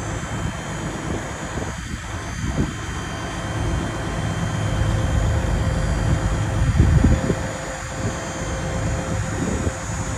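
A vehicle engine running with a steady low rumble. The rumble swells briefly about two-thirds of the way through.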